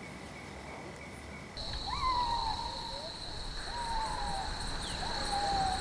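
Forest ambience at dusk. A steady high insect drone sets in about a second and a half in, and three short hooting calls follow, each rising and then holding.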